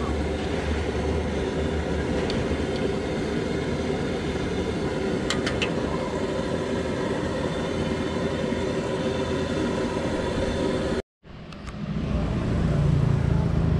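Steady roar of a gas wok burner firing under a large wok of frying noodles, with a few light metallic clinks of the spatula. The sound cuts out briefly about eleven seconds in and returns as a lower rumble.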